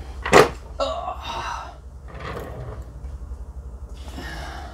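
A person's sharp breath, then a short voiced sound lasting about a second, over a steady low hum.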